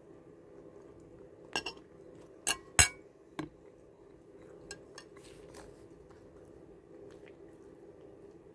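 A metal fork clinking against a plate: a few sharp clinks between about one and a half and three and a half seconds in, the loudest near three seconds, then a couple of faint taps.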